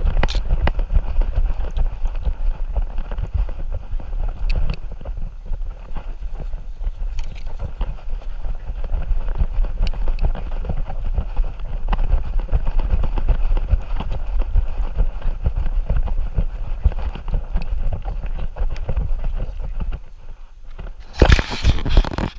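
Jostling of a camera worn by a moving dog: dense low thumps of its footfalls and rubbing of fur and harness against the microphone. It drops briefly near the end, then loud rubbing and knocks as the camera is handled.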